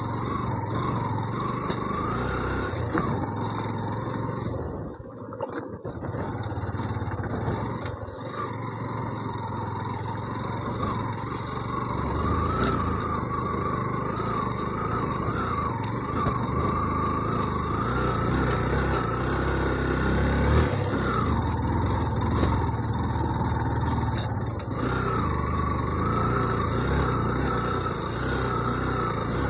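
Yamaha FZ V2's single-cylinder engine running as the motorcycle is ridden, its pitch rising and falling with the throttle, with a brief drop in level about five seconds in.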